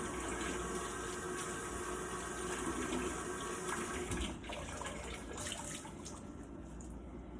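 Kitchen tap running hot water onto a cloth in the sink, a steady splashing rush that drops off about four seconds in, leaving quieter splashing.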